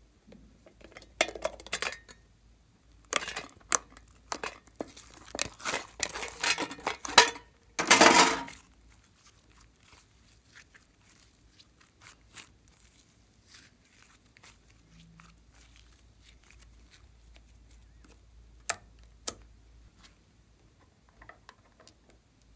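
Hands opening a metal slime tin and working slime out of it: a run of sharp clicks and crackles over the first eight seconds, ending in a louder crackling burst. Then only faint scattered clicks as the slime is stretched by hand and set down in a glass bowl.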